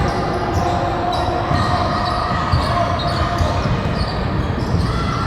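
Basketball bouncing on a hardwood gym floor during play, mixed with players' and spectators' voices echoing in the hall.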